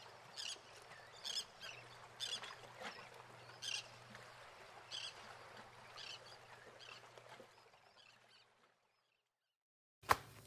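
Plastic toy sand molds and moldable play sand being handled on a plastic tarp: faint soft taps and clicks about once a second. They stop for a moment near the end, then a few sharp plastic clicks follow.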